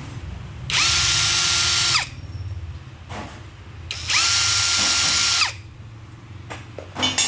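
Electric drill/driver run twice, each burst about a second and a half, spinning up to a steady whine and winding down, driving screws out of a motorbike carburetor to open it. A few light clicks of handled metal parts near the end.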